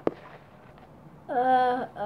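A single sharp click, then a voice holding a drawn-out, steady-pitched sound about a second and a half in.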